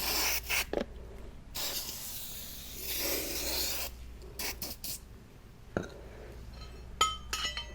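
Tire irons scraping and rubbing as they are worked in between a motorcycle tire and its rim, followed by a few sharp metallic clinks with a short ring near the end.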